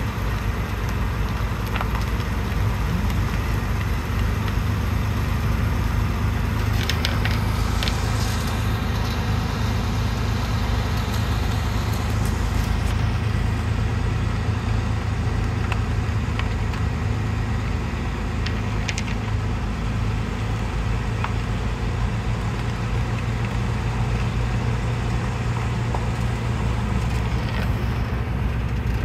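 Steady low rumble of cars on the move: engine, tyre and road noise, with a few faint clicks about seven and nineteen seconds in.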